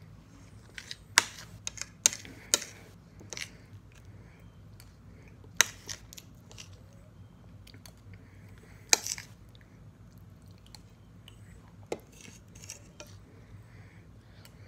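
Eating at close range: a metal fork clinking and scraping on a plate in about six sharp clicks, with quieter chewing of soft food in between.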